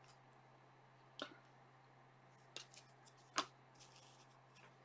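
Near silence with a few faint, short clicks of trading cards being handled, about a second apart.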